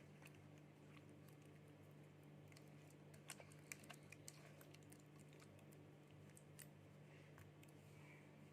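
Near silence: a steady low hum with scattered faint clicks and taps, a few slightly louder ones a little past three seconds in.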